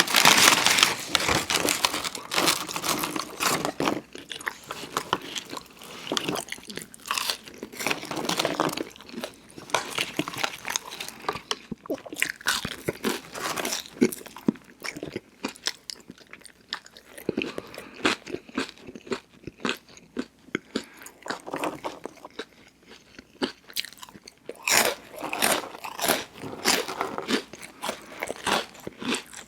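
Close-miked chewing and crunching of crunchy fast food, with loud crunchy bites at the start and again near the end and quieter chewing in between.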